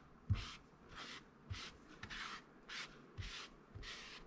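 Silicone spatula stirring dry wheat flour in a wooden bowl: about seven soft, dry scraping strokes at an even pace, each with a faint dull knock against the wood.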